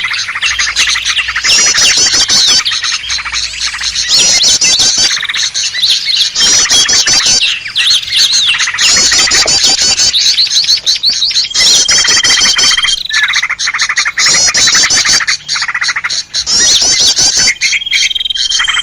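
Loud, busy chorus of several small songbirds calling at once, as in a looped bird-lure recording: rapid high chirps and trills in bursts about a second long, with a held whistle twice, about twelve seconds in and near the end.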